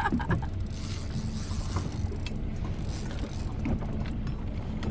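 Boat motor idling steadily, a low even hum.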